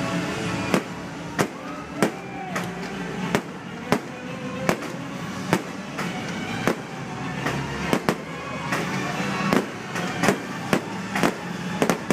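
Fireworks bursting one after another, a sharp bang roughly every half second to second and closer together near the end, over music playing.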